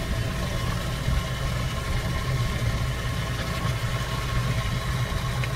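A steady low motor hum with a few held tones, like an engine idling, over the even rush of water from a garden hose filling a bass boat's livewell.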